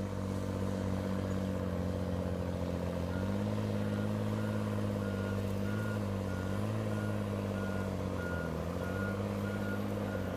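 Diesel engine of a Tigercat 635D log skidder running steadily, its pitch dipping and recovering a few times under the pull of a load. A backup alarm starts beeping about three seconds in, at roughly one and a half beeps a second.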